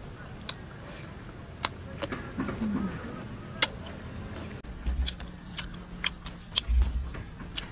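Close-up eating sounds of someone chewing crispy fried cow intestine and raw cucumber: scattered crisp clicks and mouth smacks. Two dull low thumps come about five and seven seconds in.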